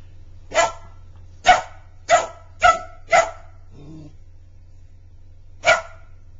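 Border Collie puppy barking: five sharp barks in quick succession, then one more after a pause of about two seconds.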